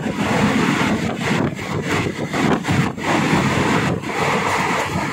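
Running noise of a moving passenger train, a steady rumble with gusty wind buffeting the microphone.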